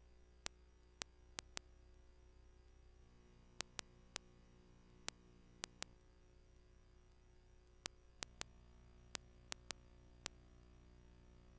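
Faint steady hum with sharp clicks at irregular intervals, well over a dozen of them.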